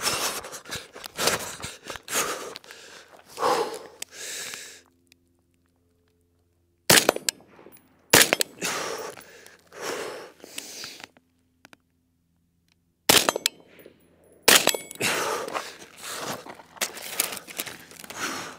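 Shots from an AR-style rifle, several single sharp cracks spread through the stretch, between spells of running footsteps and rattling gear.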